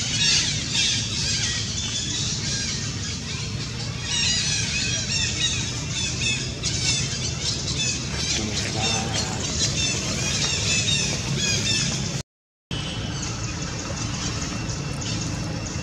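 Long-tailed macaques squealing: many short, high-pitched arching squeaks in quick runs, over a steady low hum. The sound drops out completely for a moment about twelve seconds in.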